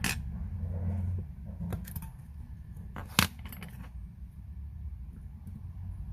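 Light metallic clicks and taps of watchmaker's tools on small watch parts, a handful of them with the sharpest about three seconds in, over a steady low background hum.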